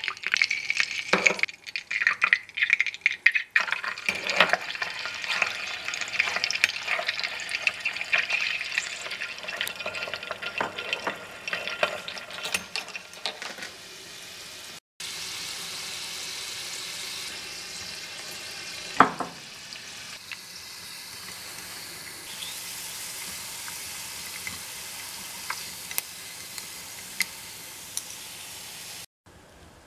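Small pieces of battered chicken deep-frying in a tiny pot of hot oil: a dense sizzle and crackle full of sharp pops. About halfway in the sound cuts and resumes as a steadier, quieter hiss with occasional pops, and a single knock a few seconds later.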